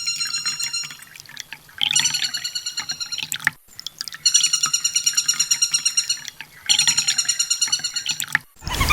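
Kolibri ninja sunbird song: rapid, buzzy pulsed trills about two seconds long, repeated three times with short breaks. A different, louder pulsing sound cuts in right at the end.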